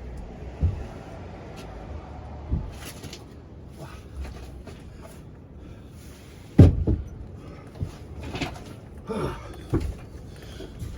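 Bed boards being shifted and knocked about inside a van, with a series of scattered thumps and knocks; the loudest is a sharp heavy thump a little past halfway.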